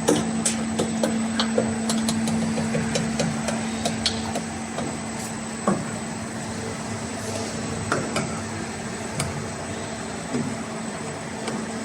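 CNC arch-bending machine for aluminium profiles running with a steady hum, with scattered clicks and metallic knocks throughout.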